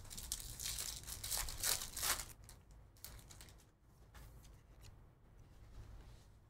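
Topps Chrome card pack wrapper crinkling and tearing for about the first two seconds, then fainter ticks and slides as the cards are handled.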